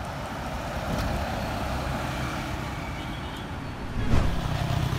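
Box truck driving by, its engine running with road noise; a short thump about four seconds in.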